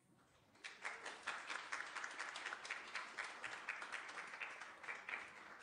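Congregation applauding after a song. The clapping starts about half a second in, just as the last acoustic guitar chord dies away, and thins out near the end.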